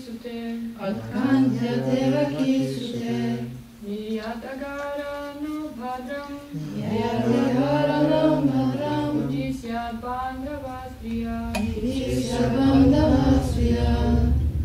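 A group of men and women chanting a Sanskrit verse together to a slow, sung melody, in phrases of a few seconds with short breaks between them. There is a sharp click about eleven and a half seconds in, and a low rumble near the end.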